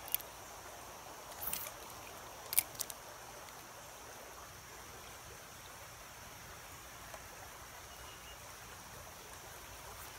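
Shallow mountain creek water running steadily. A few sharp clicks come in the first three seconds, the loudest about two and a half seconds in.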